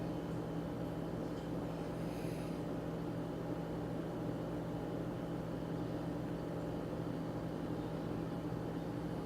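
Newly built desktop PC running after its final boot: a steady hum of its fans and power supply.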